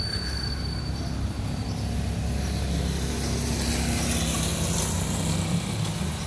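Small motorcycle's engine running as it rides along the street, getting louder about three seconds in.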